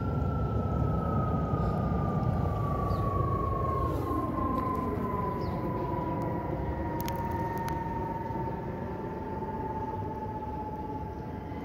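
Jet airliner passing high overhead: a steady rumble with a whining engine tone that slides slowly down in pitch as it goes by, growing a little fainter toward the end.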